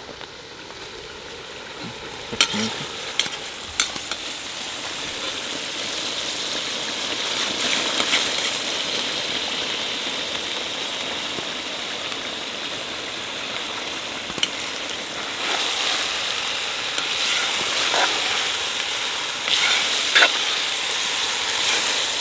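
Beef frying hard in fat in a kazan sizzles as julienned carrots are tipped in to start the zirvak, the hiss building over the first few seconds. A metal skimmer stirs through the pot, with a few sharp knocks of metal.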